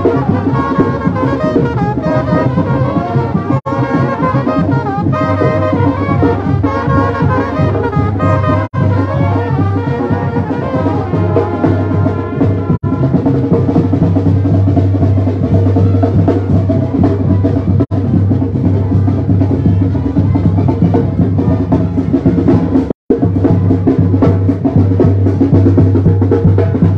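Mexican street brass band (banda) playing while marching: brass over a pounding tambora bass drum with crashing cymbals and a snare drum. The music briefly cuts out a few seconds before the end.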